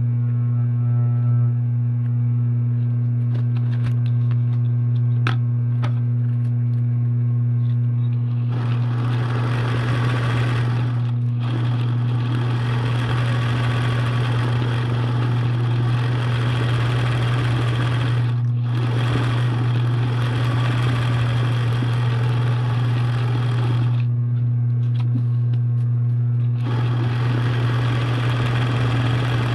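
Sewing machine: a steady motor hum, then stitching starts about eight seconds in and runs in long spells. It pauses twice briefly and stops for a couple of seconds near the end before resuming.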